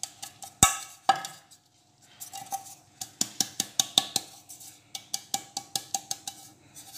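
Hands tapping and patting a hand-held metal cake mould while tilting it to spread a dusting of flour over the greased sides. Two louder knocks come about half a second and a second in, then a short pause, then a steady run of quick light taps.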